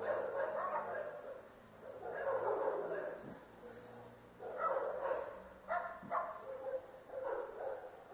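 A dog barking repeatedly in short bouts of several barks each, with a lull about halfway through.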